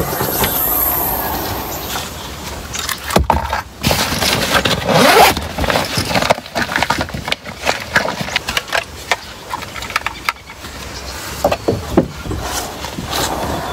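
Things being handled and moved about inside a car: a string of knocks, clicks, scrapes and rustling over a steady low rumble.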